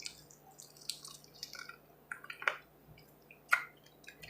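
Close-up wet mouth sounds of someone chewing buffalo chicken wings: scattered smacks and clicks, the sharpest about three and a half seconds in.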